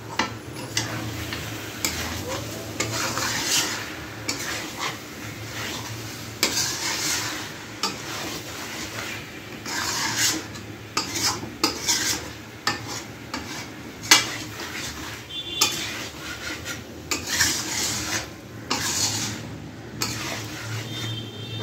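Metal spatula stirring and scraping chicken pieces in onion, ginger-garlic and tomato paste around a metal kadai, in repeated strokes with a soft frying sizzle and occasional sharp clinks of metal on the pan.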